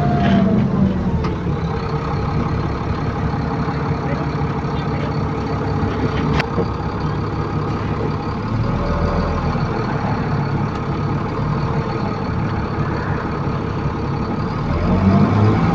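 ADL Enviro400 Trident bus with a Voith automatic gearbox, heard from on board. A whine falls away in the first second as the bus slows, the engine runs steadily through the middle, and a rising whine with louder engine near the end as it pulls away.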